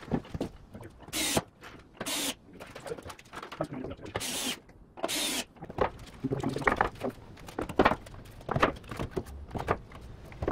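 A cordless drill driving screws into pine stair stringers in four short bursts, with knocks and scrapes of wooden boards being fitted between them.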